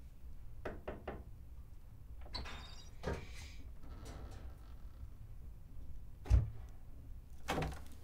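Water and a metal washbasin handled on a wooden bathhouse floor, with small splashes and scrapes, then a heavy thump about six seconds in and a second knock near the end, as a wooden door is opened.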